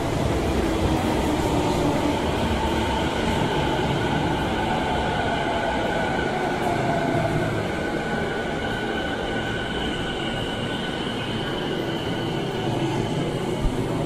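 Toei 10-300 series electric subway train running into the station and braking to a stop. A rumble of wheels on rail carries high whining tones as it slows.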